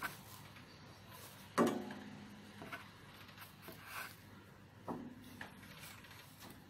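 A few faint knocks and clicks, two of them sharper with a short ringing tail, about three seconds apart.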